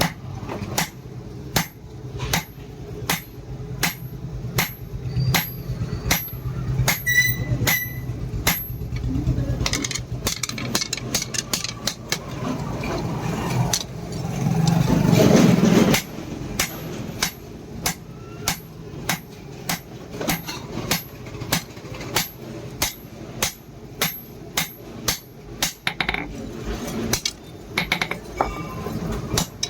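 Hand hammer striking steel on an anvil, a blacksmith forging a leaf-spring blank: a steady run of ringing blows about one and a half a second. Near the middle the blows come faster and a louder rushing noise swells, then a low hum stops and the even hammering resumes.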